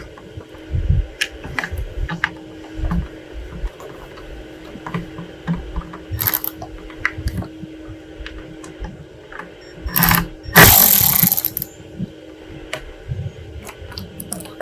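Cordless Milwaukee driver with a 7/32-inch socket on a quarter-inch extension backing out a grille-shell bolt: a brief spin about six seconds in, then a longer, loud run of about a second and a half near the ten-second mark. Between them, scattered clicks and knocks of the socket and parts being handled.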